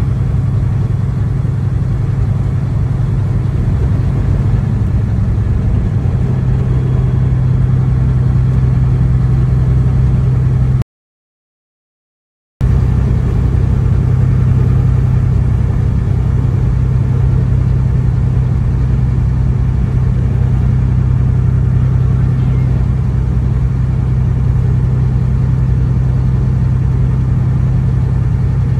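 Steady low drone of a truck's engine and road noise heard inside the cab while driving, broken by about a second and a half of dead silence near the middle where the recording is cut.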